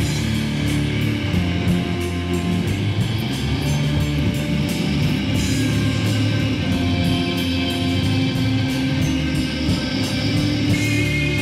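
Loud rock music with guitar, many notes held long over a dense, heavy low end.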